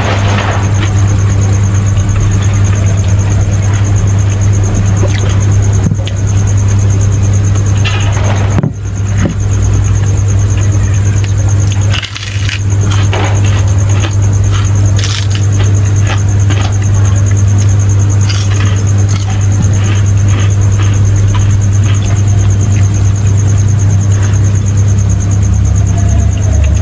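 A loud steady low hum runs throughout, with a steady high-pitched whine above it. Scattered small clicks and smacks of eating by hand come through on top.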